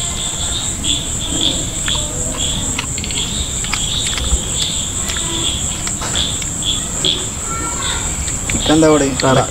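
Night insects calling steadily: one gives a continuous high trill, and another chirps in short pulses about twice a second.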